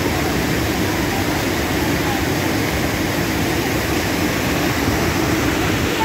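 Steady rushing of water pouring over a low concrete overflow weir, an even unbroken noise of falling and churning water, with faint voices of bathers in it.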